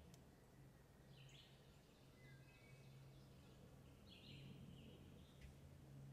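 Faint woodland birdsong: short songbird phrases that step down in pitch, about a second in and again around four seconds in, over a low steady hum.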